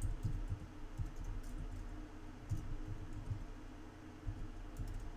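Typing on a computer keyboard: irregular key clicks as an IP address is entered.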